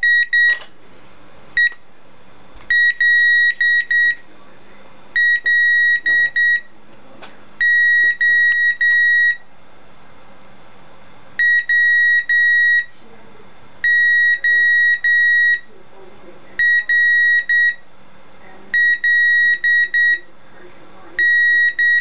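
Breadboard buzzer wired to a Raspberry Pi, keyed by a Python program to send "HELLO WORLD" in Morse code. It sounds one steady high-pitched tone, cut into short and long beeps that are grouped letter by letter, with a longer pause about halfway through at the space between the two words.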